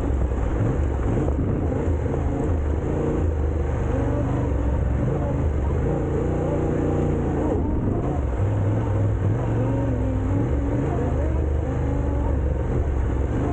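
Motorcycle engine running as it is ridden, its pitch rising and falling with the throttle.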